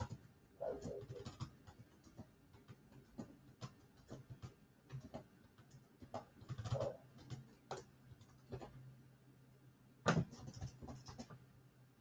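Faint, irregular clicking and tapping, like typing on a computer keyboard, over a low steady hum.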